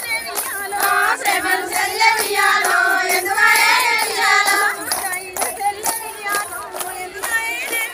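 A group of women singing a Bathukamma folk song together, clapping their hands in a steady rhythm.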